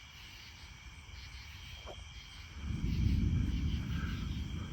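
Crickets trilling steadily in the night; about two and a half seconds in, a low rumble from the approaching storm swells up and holds, the loudest sound.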